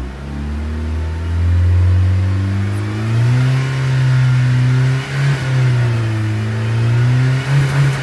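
1999 Saturn SL2's 1.9-litre twin-cam inline-four engine revved up over about two seconds and held at around 4,000 rpm, heard from inside the car. The engine note wavers slightly and dips briefly twice in the second half.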